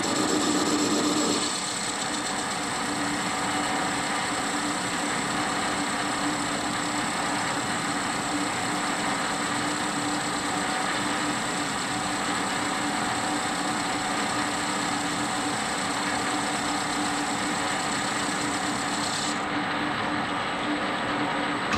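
Warco 280V metal lathe running steadily, its chuck spinning a cast-iron wheel rim that is being turned to size. There is a constant hum and a high whine; the hiss on top drops away near the end.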